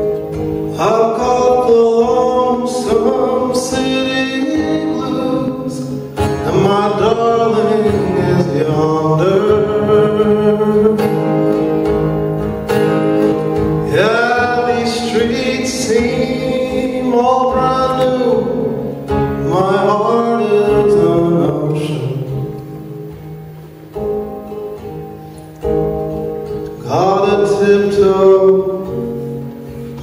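A man singing a folk song live to his own acoustic guitar, in long phrases over steady strumming, dropping quieter for a few seconds near the end before building again.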